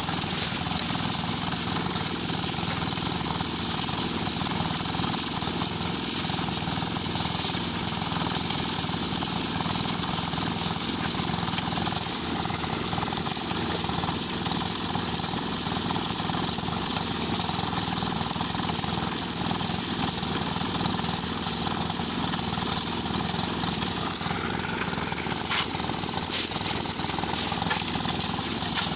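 Engine-driven portable drum concrete mixer running steadily, its small engine going with wet concrete tumbling in the turning drum. A few short shovel scrapes near the end.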